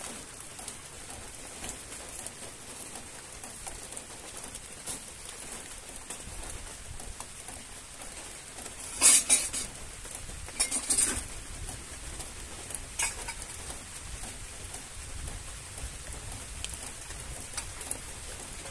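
Steady patter of rain, with sharp metallic clatters of a cooking pot and utensils being handled, loudest about halfway through and again a couple of seconds later.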